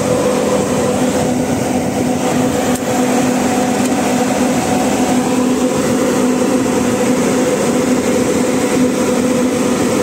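Bus rooftop air-conditioning unit running, its six electric condenser fans blowing with a steady hum and a rush of air.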